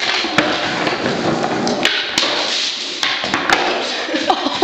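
Skateboard rolling over concrete with a steady wheel rumble, broken by several sharp knocks and taps.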